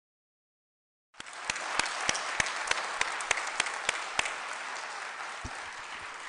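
Audience applauding: after about a second of dead silence the applause cuts in abruptly, a dense patter of many hands with a few sharp claps standing out, easing off slightly near the end.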